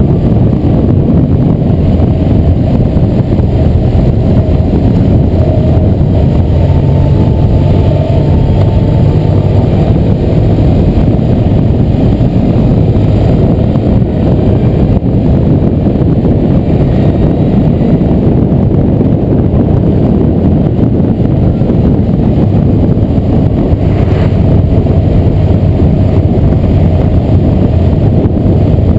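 Motorcycle riding at steady road speed, heard from on the bike itself: a loud, even engine drone mixed with road and wind noise, with no sharp revving or gear changes.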